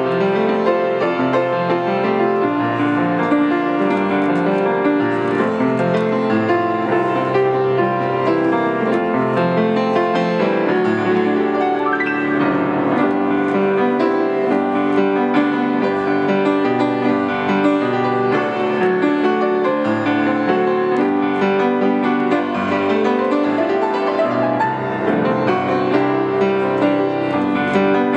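A grand piano played solo in a hymn arrangement: a continuous, flowing run of sustained, overlapping notes and chords at an even volume.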